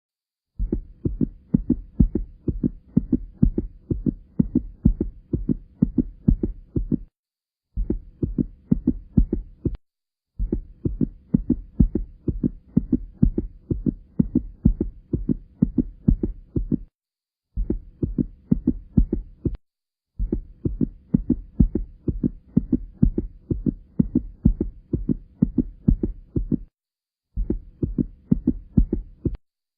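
Human heartbeat, its low thumps repeating in a steady rhythm, broken several times by brief silences.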